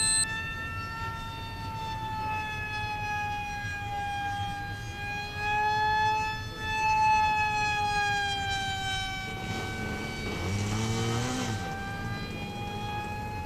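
Electric R/C pusher jet in fast flight: the high whine of its Medusa brushless in-runner motor and APC 6.5x5 propeller, steady in tone but drifting slowly down and up in pitch as the plane passes, loudest around the middle.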